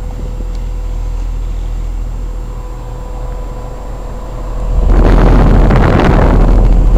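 Bryant Evolution two-stage heat pump's outdoor unit running in cooling mode: the steady hum of its Copeland scroll compressor and condenser fan, with a faint steady whine. About five seconds in, the sound jumps to a much louder rush as the fan's discharge air blows across the microphone.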